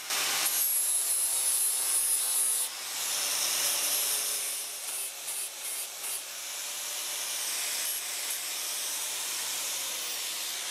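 Corded angle grinder grinding the cut end of steel square tubing to clean it up, a steady abrasive grinding that is loudest for the first couple of seconds, then wavers in short dips as the pressure on the steel changes, and eases as the grinder is lifted off near the end.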